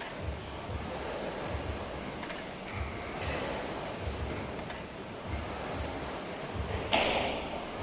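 Steady noisy hall ambience at a CrossFit competition, with a low thump repeating about twice a second and one sharp, loud bang near the end.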